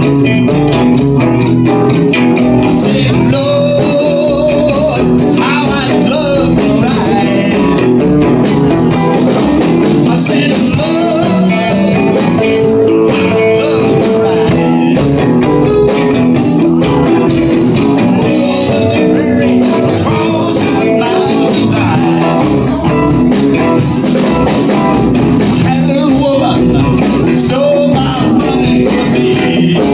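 Live band playing: electric guitars over electric bass and a drum kit, loud and unbroken.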